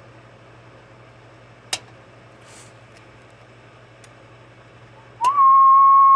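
A low steady hum with a single click, then about five seconds in another click and a loud, steady high tone that holds: a test tone keyed into the transmitter on sideband, driving the MaCo 300 tube amplifier to about 350 watts.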